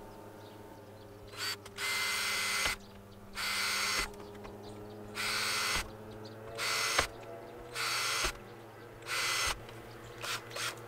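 Cordless drill drilling a row of holes through plastic pipe, in about six short bursts of up to a second each with brief pauses between them.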